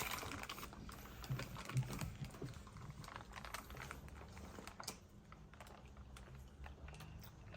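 Faint, scattered clicks and light taps from handling MRE food pouches, cups and utensils at a table, with a few soft knocks in the first two seconds.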